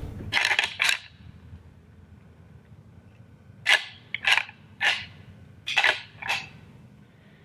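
Deer antlers being rattled together: seven sharp clacks in three short groups, two, then three, then two, imitating bucks sparring to draw in a rutting buck.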